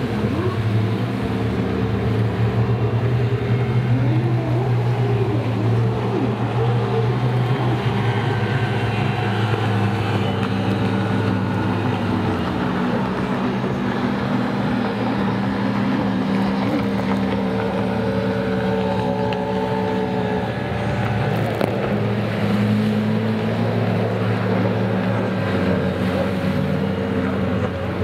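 Racing personal watercraft (jet skis) running hard as they corner around the course buoys, a steady loud engine and jet-pump drone.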